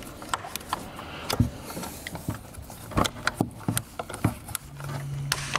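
Small screwdriver prying and clicking against plastic clips and metal inside a car door's inner frame, a string of irregular sharp clicks and knocks as a stubborn safety stop is worked loose. A low steady hum comes in for about a second near the end.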